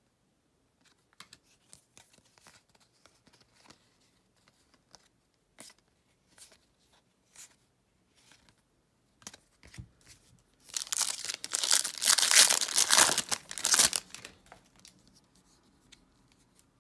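A baseball card pack's wrapper torn open and crinkled, loud for about three seconds starting near the two-thirds mark. Before that, cards are slid and flipped with faint light ticks.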